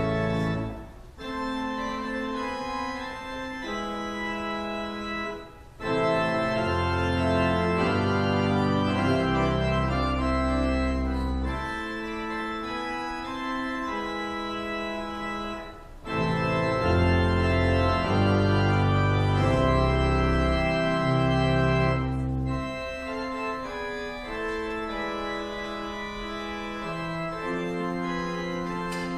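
Pipe organ playing held chords over long, low pedal notes. There are short breaks between phrases about a second in, near six seconds and near sixteen seconds.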